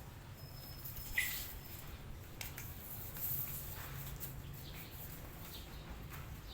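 A short, high animal call about a second in, over a steady low hum and a few faint clicks.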